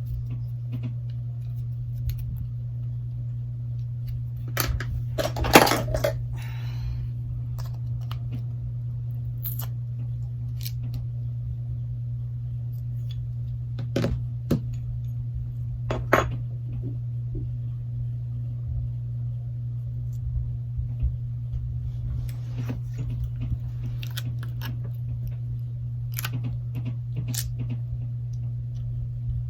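Small, scattered clicks and taps of tools and phone parts being handled during a Galaxy Note 8 teardown, the biggest cluster about five seconds in, over a steady low hum.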